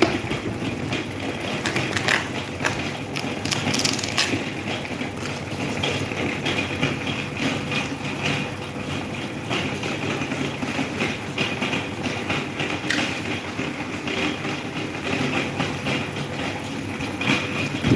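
Electric table fan running: a steady motor hum and blade whir, with scattered light clicks.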